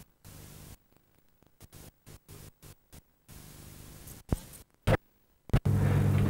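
Videotape playback noise: a faint hiss and low hum that keep dropping out to silence, with a few sharp clicks. Near the end a much louder hum with hiss cuts in.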